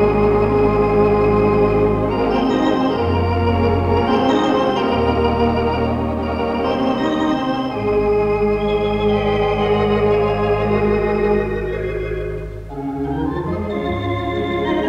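The four-manual, fourteen-rank Wurlitzer theatre organ of the Gaumont Cinema, Manchester, playing held chords over long bass notes that change every second or two, with a short lull about three-quarters through. It is heard through a 1960s mono tape recording made off the radio.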